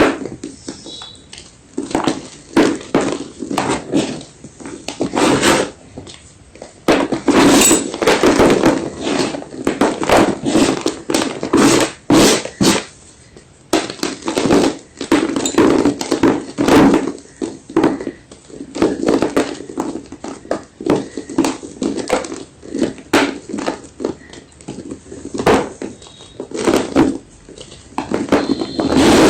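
White gym chalk crunching close to the microphone: a long run of short, dry crunches at an irregular pace, with a couple of brief pauses.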